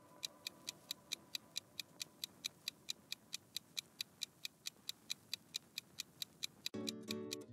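Countdown-timer clock ticking, a sharp tick about four times a second. Near the end a music bed comes in under the ticks.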